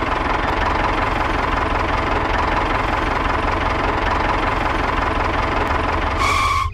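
Tractor engine idling steadily with a regular low pulse. About six seconds in, a brief higher tone sounds over it and then cuts off.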